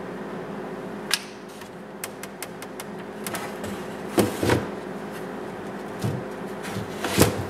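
Hands handling a plastic tractor grille on a table: scattered light clicks and taps, with louder knocks about four seconds in and near the end, over a steady background hum.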